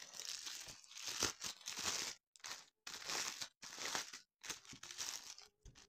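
Clear plastic bag crinkling in a series of short, irregular rustles as a packaged cross-stitch canvas is handled.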